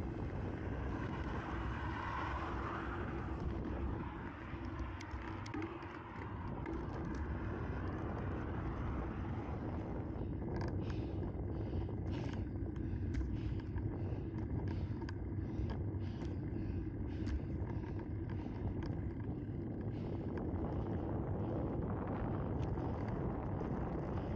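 Wind buffeting the microphone of a camera on a moving bicycle, with steady low road noise. Partway through, a regular ticking comes in at about two ticks a second for roughly ten seconds, then fades.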